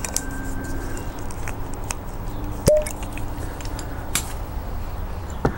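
A cork being drawn from a wine bottle with a corkscrew: small clicks as the screw works, then the cork comes free with one sharp pop a little under three seconds in. A few light clicks of the bottle and corkscrew being handled follow.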